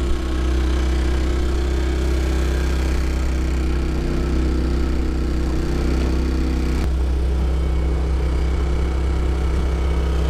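Boat's outboard motor running steadily: a low hum with steady overtones, which shift slightly about seven seconds in.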